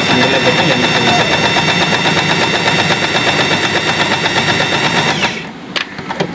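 Usha Janome Excella electric sewing machine running at a steady speed, its needle stitching rapidly with a steady motor whine. It stops abruptly about five seconds in, and a few light clicks follow.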